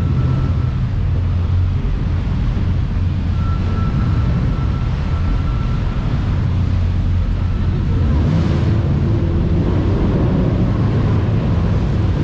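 Twin V8 engines of a jet boat running steadily, with wind buffeting the microphone and water rushing past. The engine note shifts about eight seconds in.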